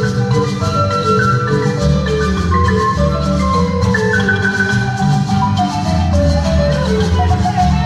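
Honduran folk dance music led by marimba, quick runs of struck notes over a steady bass line.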